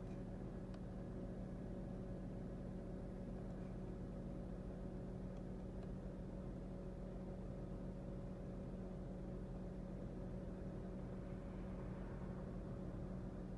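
A steady low machine hum, one even drone with fainter higher tones above it.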